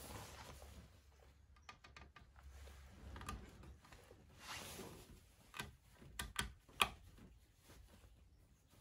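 Soft rubbing and a scattering of small clicks and taps as hands work a new rubber impeller into the Beta Marine 20's raw-water pump housing, the sharpest click about seven seconds in.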